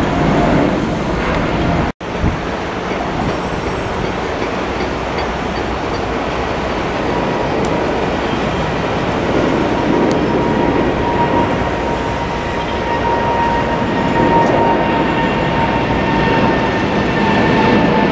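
Boeing 777-300ER climbing out after takeoff: its GE90 engines give a loud, steady jet roar with a faint whining tone that slowly falls in pitch. The sound drops out for an instant about two seconds in.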